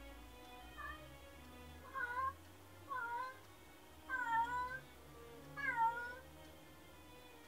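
Domestic cat meowing repeatedly, about five drawn-out meows roughly a second apart, each dipping and then rising a little in pitch, the later ones loudest. This is lonely crying by a cat left home alone.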